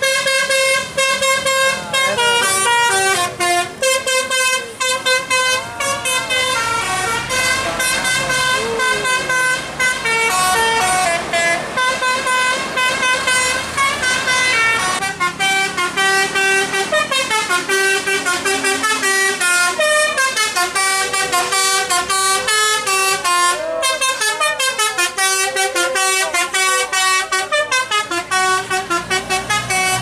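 Tour buses' telolet basuri musical air horns playing a continuous winding melody, the notes stepping up and down with a few sliding swoops.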